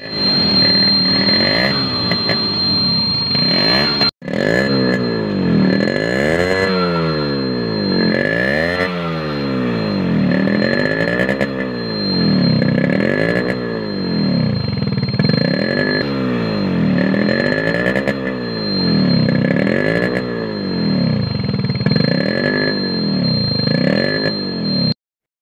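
Yamaha RX100's 98 cc two-stroke single-cylinder engine, heard at its exhaust, revved up and down over and over while standing still, a rise and fall about every two seconds. The sound breaks off for an instant about four seconds in.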